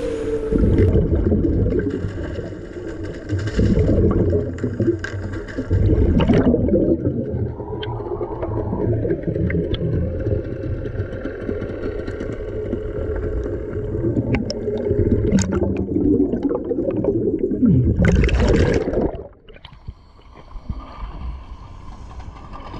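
Underwater water noise and bubbling, heard through an underwater camera housing as a low, muffled rush with irregular surges and a few clicks. About 19 seconds in there is a short hissing splash, and then the sound drops sharply to quieter lapping water as the camera breaks the surface.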